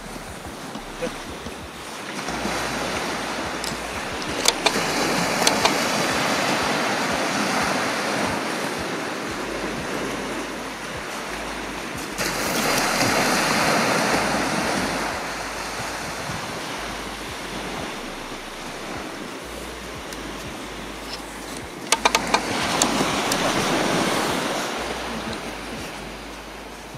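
Sea waves breaking and washing up a sandy beach, swelling and fading three times about ten seconds apart. A few short, sharp clicks come through in the first few seconds and again just past two-thirds of the way.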